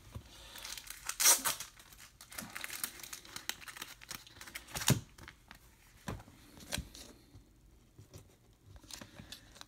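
Crinkly rustling of trading cards and their plastic packaging being handled, loudest about a second in, with a few light sharp taps later as cards are set down.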